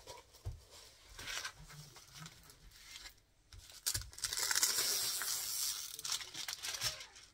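Diamond painting canvas and its plastic cover film crinkling and rustling as it is unrolled and smoothed flat by hand, with two dull knocks on the table. The crinkling is loudest and most continuous from about four seconds in until near the end.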